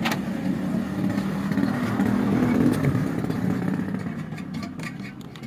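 Small motorcycle engine running, starting suddenly, growing louder to about the middle, then fading away.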